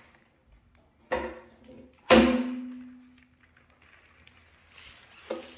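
Two metal knocks about a second apart as the oil pan of a Ford 5.0L Coyote V8 is worked free from the block. The second knock is loud and rings briefly.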